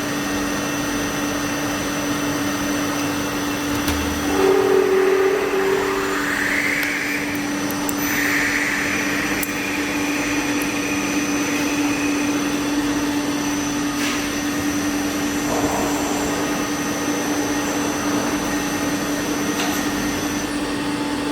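Automatic hollow pipe making and welding machine running steadily: a constant machine hum with a thin high whine over it, plus a few brief higher tones, one of them rising, between about four and twelve seconds in.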